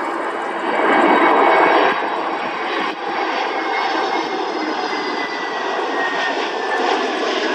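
An Airbus A321 airliner's twin turbofan engines running on final approach as it passes low and close. A steady jet roar, loudest a second or so in, carries a thin whine that slowly falls in pitch as the aircraft goes by.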